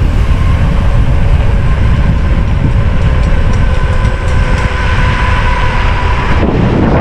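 Wind buffeting the camera microphone as a mountain bike rolls fast on asphalt, with a steady hum from its knobby tyres on the pavement.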